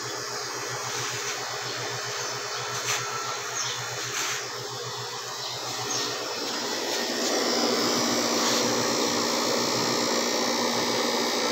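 Mini ice plant's refrigeration unit running with a steady mechanical hum and a pulsing low drone while it is charged with new freon. A few light clicks come in the first half, and the sound grows louder about seven seconds in.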